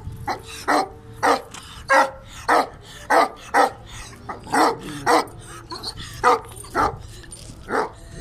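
Kohati Gultair (Pakistani Gull Terrier) barking repeatedly in deep, short barks, about two a second with a short pause about halfway through.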